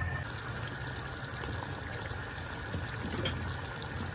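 Pot of vegetable stew simmering under a glass lid, a steady bubbling hiss over a low hum, with one brief clink about three seconds in.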